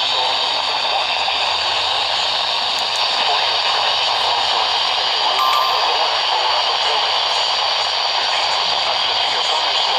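Steady hiss of radio static from a receiver with no clear signal, with a short faint tone about five and a half seconds in.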